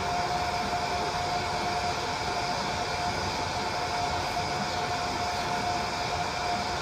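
Toy bubble machine's small fan motor whirring steadily: a constant hum over an even hiss.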